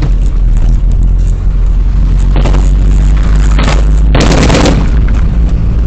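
Loud, steady rumble of a car driving, picked up by a dashcam inside the cabin. About two and a half seconds in come bursts of rapid automatic gunfire, three in all, the longest a little after four seconds.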